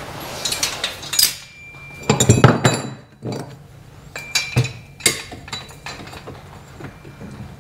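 Metal tools and parts knocked and set down against one another during work on the motorcycle's suspension springs: a string of sharp clinks and knocks, a few ringing briefly. The loudest cluster comes a little over two seconds in.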